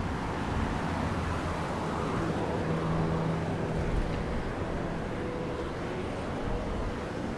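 A low engine hum over a steady rumble, strongest a few seconds in.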